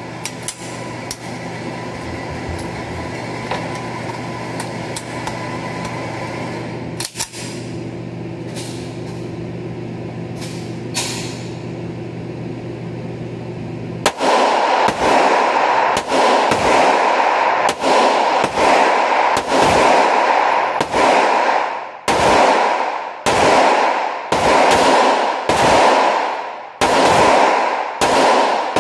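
Steady ventilation hum with a few clicks of gun handling. About halfway through, a 1911 pistol opens fire in a steady string of shots, a little under a second apart, each ringing off the walls of an indoor range booth.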